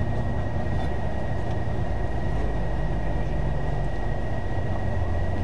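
Steady low rumble of a moving vehicle heard from inside, with a thin constant high whine running over it.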